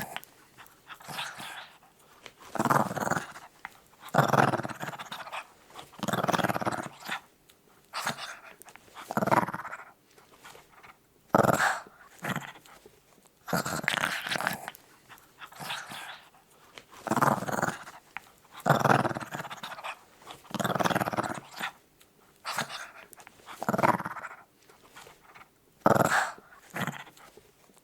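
Small dog growling in repeated bouts, each growl lasting about half a second to a second and a half, with short pauses for breath between them.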